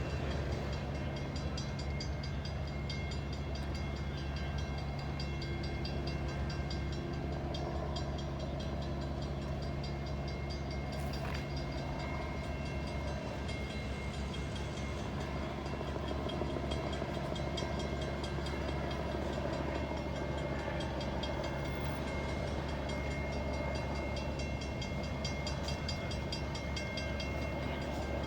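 Steady low hum of idling diesel engines, with a faint steady high-pitched whine over it.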